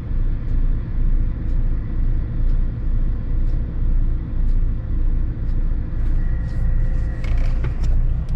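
Heavy diesel truck engine idling with a steady low rumble that swells about once a second, with faint ticks about once a second. From about six seconds in, lighter clattering and a thin high tone join it.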